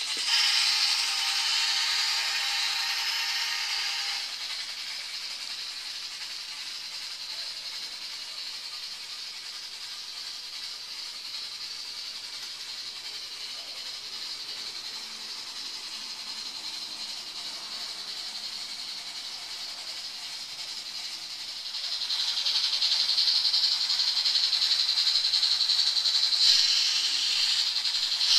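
N-scale model locomotives, a Class J and a 2-8-8-2 Mallet double-heading on Kato Unitrack, running: a steady high whir and rattle of their small motors and wheels on the rails. It is louder for the first four seconds or so and again from about three-quarters of the way through, when the train runs close, and softer in between.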